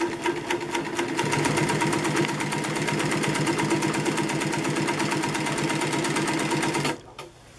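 Juki LU-562 walking-foot industrial sewing machine sewing through layers of denim at its longest stitch length, about five stitches to the inch. It runs steadily with a fast, even ticking of the needle and feed, then stops about seven seconds in.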